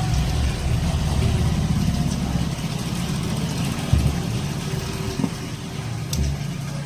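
Prestige mixer grinder's brushed motor running steadily.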